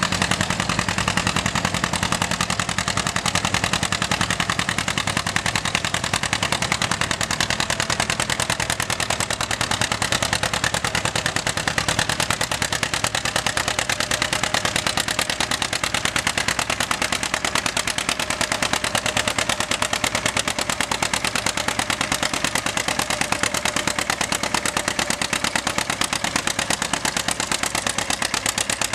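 John Deere two-cylinder tractor engine running steadily with its rapid, even exhaust popping.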